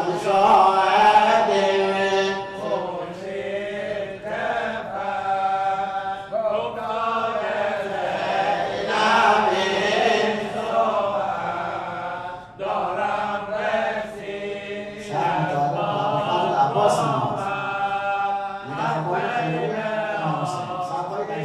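A man chanting a Shia Muharram mourning lament (noheh) into a microphone, in the Bushehr pa-manbari style that opens a mourning gathering. The voice holds long wavering phrases, with short pauses for breath between them.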